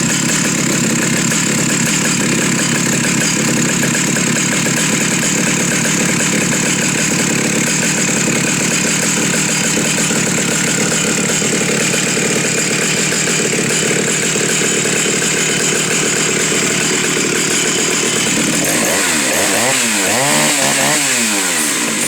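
Prototype Stihl chainsaw's 075 two-stroke engine running steadily, then revved up and down a few times near the end.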